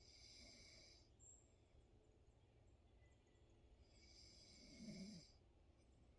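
Faint woodland ambience. A buzzy, high-pitched animal call about a second long sounds at the start and again about four seconds in, with a brief low rumble under the second call.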